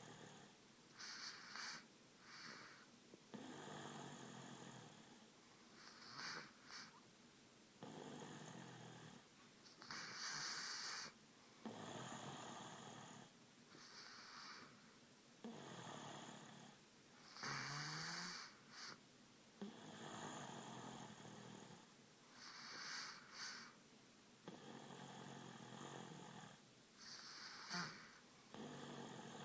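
Snoring in a slow, steady rhythm, one breath roughly every three to four seconds.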